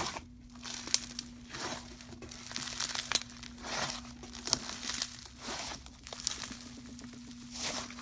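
Slime being squeezed and worked by hand, making repeated short crackling, crinkling pops, about one or two a second, over a faint steady hum.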